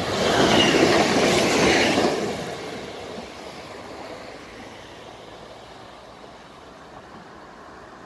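FAS/TUA ETR.S03 electric regional train passing close by at speed, loudest for the first two seconds. Its rumble then fades steadily as it draws away.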